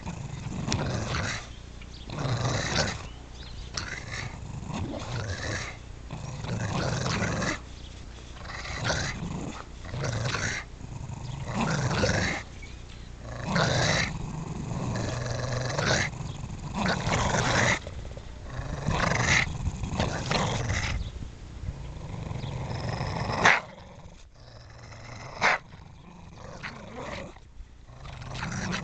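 Bulldogs growling in repeated bursts while playing tug-of-war over a duct-tape-covered nerf football gripped in their mouths. About two-thirds of the way through there is a sudden sharp sound, and after it the growling is quieter.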